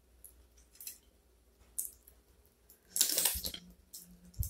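Crab shell being pulled apart by hand and eaten: a few small clicks and cracks, then a louder crackle about three seconds in.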